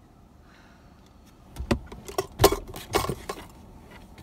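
Handling noises from a liquid lipstick tube and its small paper box being unpacked. After a quiet start, a quick run of knocks, taps and clinks comes about a second and a half in and stops about a second and a half later.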